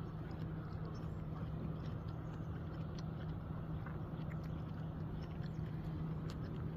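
A motor running steadily with a constant low hum, with faint scattered clicks and taps over it.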